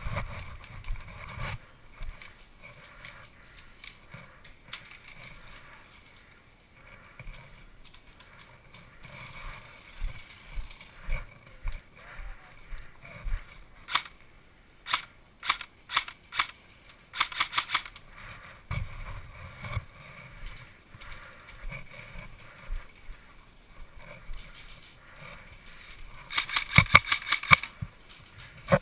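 Airsoft guns firing: scattered single shots around the middle, then a rapid full-auto burst near the end, the loudest sound, over the rustle and knock of the player's gear.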